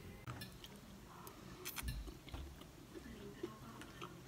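Faint eating sounds: a person chewing food, with a few light clicks scattered through.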